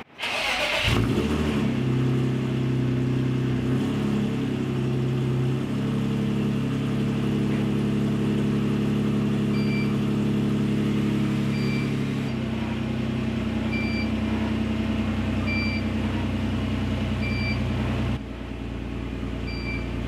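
BMW E46 race car's straight-six engine cold-started, catching about a second in and then idling, its note stepping down a few times and dropping near the end. From about halfway, a GZAIR SA103 carbon monoxide detector beeps about every two seconds: its alarm for exhaust carbon monoxide above 50 ppm.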